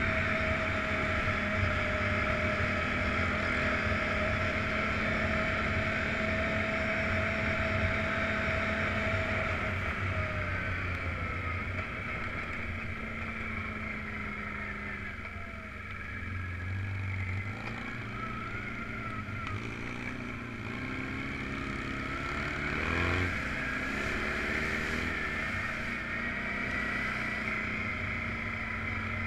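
Off-road vehicle engine running steadily while driving on a dirt trail. Its pitch dips and rises through the middle as it slows and speeds up again.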